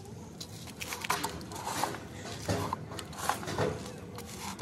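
Potting soil being scooped with a plastic scoop, poured into a terracotta pot and pressed around the cutting by hand: irregular soft scrapes and rustles.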